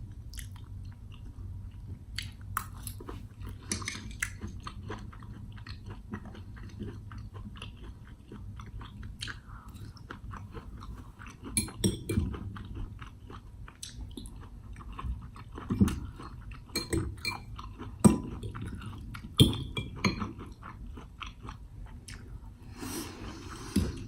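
Close-miked chewing and biting of a steak-and-corn meal, with many small sharp clicks and a few louder knocks scattered through.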